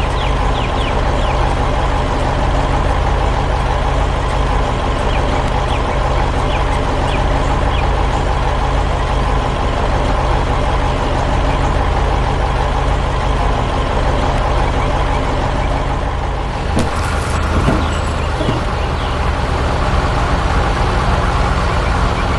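Heavy diesel truck engine running steadily, with a shift in the engine sound about three-quarters of the way through.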